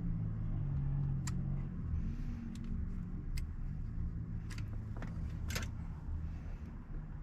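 A handful of short, sharp clicks and clinks from hand tools working on solar wires, scoring the insulation and fitting ferrules onto the wire ends, over a steady low rumble.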